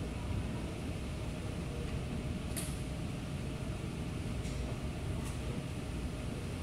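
Steady low background rumble with a faint hum, broken by a few brief, faint clicks, the first about two and a half seconds in.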